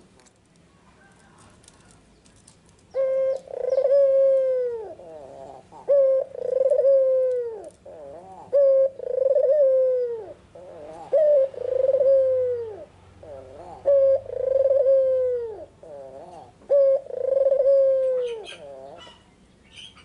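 A white ringneck dove cooing. Starting about three seconds in, it gives six repeated coos roughly every three seconds, each a short note followed by a long drawn note that falls at the end.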